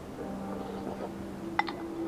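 A metal spoon clinks once against a soup bowl about one and a half seconds in. Under it runs a faint steady hum that steps up in pitch near the end.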